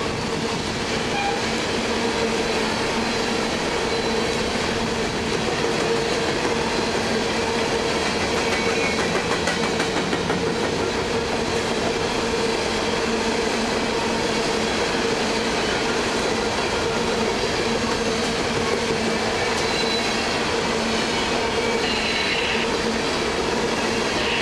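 Coal hopper cars of a long freight train rolling past, their steel wheels clicking over the rail joints in a continuous rumble, with a steady droning tone underneath.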